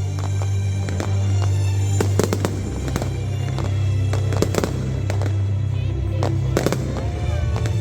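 New Year fireworks going off as a series of sharp bangs and cracks at irregular intervals, a dozen or so, over background music with a steady low sustained note.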